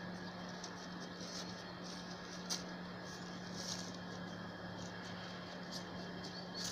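A few short, crisp crackles of frosty dry leaves and grass as a small dog pushes its way through them, over a steady low hum.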